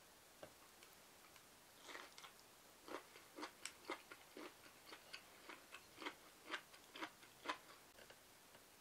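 Someone chewing a bite of grilled bamboo shoot, a series of short crisp crunches about twice a second that start about two seconds in and stop near the end.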